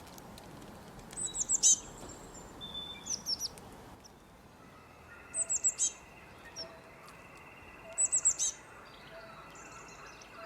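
Songbird singing: a short phrase of quick, high descending notes, repeated three times a few seconds apart, with scattered single chirps between.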